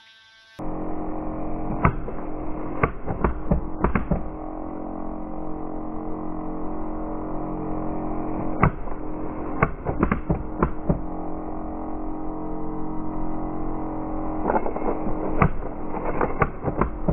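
A coin clicking and knocking irregularly against the plastic obstacles and MDF walls of a maze coin bank as the box is tilted, over a steady hum. The clicks come in scattered groups, thickest near the end.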